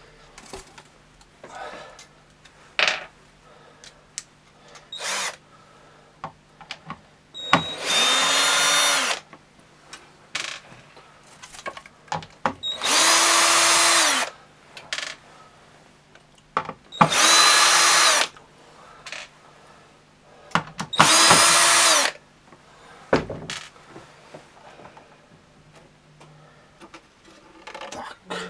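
Cordless drill-driver unscrewing a subwoofer woofer's mounting screws: four short runs of about a second and a half, each spinning up and winding down, with small clicks and handling knocks between them.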